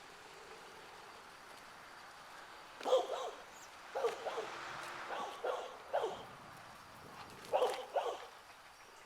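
A dog barking repeatedly in short, separate barks, some in quick pairs, from about three seconds in.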